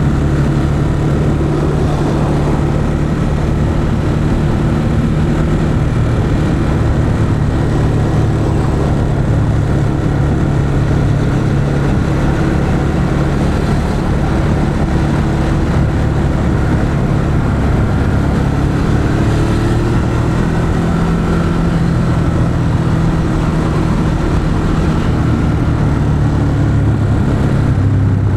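2021 Ducati Monster 821's 821 cc Testastretta L-twin engine through its stock exhaust, running at low, nearly steady revs, with a slight rise and fall in pitch about two-thirds of the way through.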